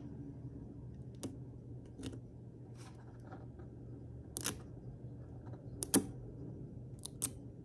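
A handful of short, sharp clicks and taps as small pieces of a screen protector kit are handled and peeled on a wooden table, the loudest about four and a half and six seconds in, over a steady low hum.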